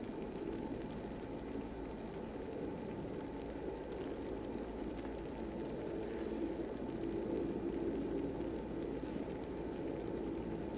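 Steady low rumble of blizzard wind, with no distinct events.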